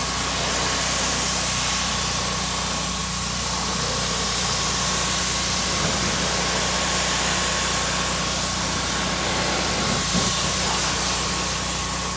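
Pressure washer running steadily, its high-pressure jet of water hissing as it sprays the car's rear bumper and exhaust tips, with a steady low hum from the machine underneath.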